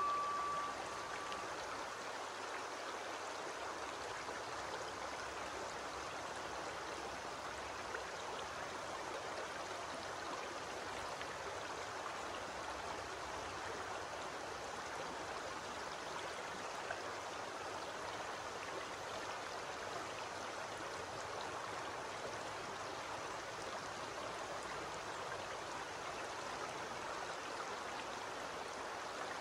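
Shallow stream running over a stony, pebbly bed, a steady babble of water. The last ring of a chime dies away in the first second.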